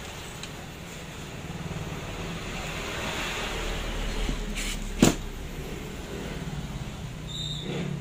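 Cordless driver's motor whirring in bursts as it drives screws into a plastic power-tool housing, with one sharp click about five seconds in.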